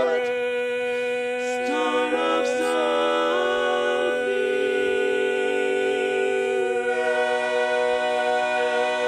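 Barbershop quartet singing a cappella, holding the long closing chord of the song over a sustained low note. The upper voices shift between about one and a half and four seconds in, and the chord changes again about seven seconds in.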